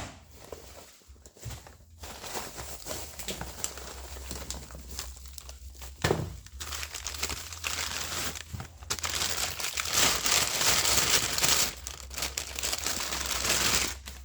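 Packaging from a brake caliper crinkling and rustling as the parts are unwrapped by hand, with a couple of sharp clicks. It is loudest over the last several seconds.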